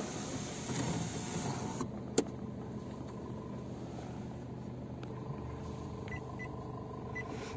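Steady hum of a parked Honda WR-V running, heard inside its cabin, with a single sharp click about two seconds in and a few faint ticks near the end.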